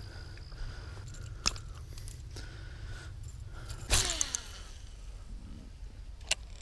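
A few sharp clicks and knocks, the loudest about four seconds in, followed by a brief falling squeak, over a steady low rumble.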